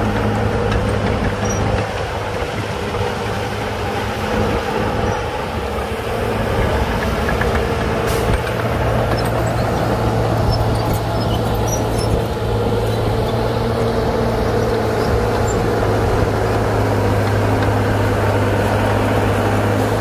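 Diesel engine of heavy earthmoving machinery running steadily at an even pitch, with a single sharp clank about eight seconds in.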